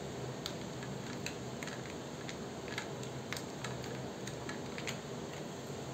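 Metal spoon stirring a drink in a tall glass with ice cubes: light, irregular clinks of the spoon against the glass and ice, about two a second, over a steady background hiss.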